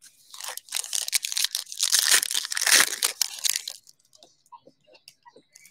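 Foil trading-card pack wrapper crinkling and tearing as it is ripped open, loudest about halfway through; then a few faint ticks.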